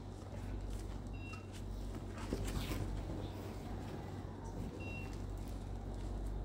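An ultrasound machine's console gives two short, high electronic beeps as its keys are pressed, one about a second in and another near five seconds, with faint key and handling clicks between. A steady low hum runs underneath.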